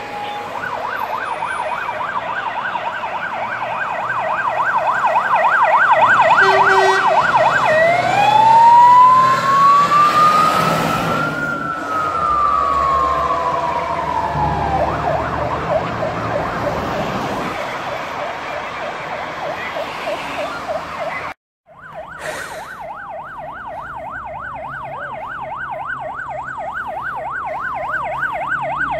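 Fire engine sirens passing: a rapid yelp sweeping up and down several times a second, switching to a slow wail that rises and falls over about seven seconds, with the trucks' engines rumbling past. After a brief break about three-quarters of the way through, the rapid yelp resumes.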